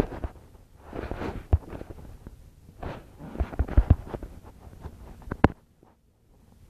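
Handling noises: rustling with several soft knocks and a sharp click about five and a half seconds in.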